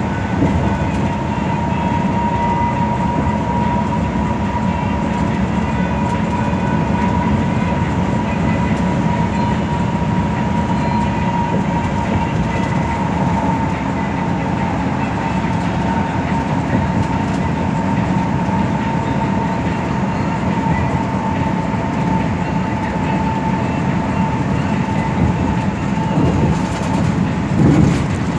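Cabin noise of a metropolitan express bus under way at a steady speed: a constant low drone of engine and road noise with a steady high whine riding over it.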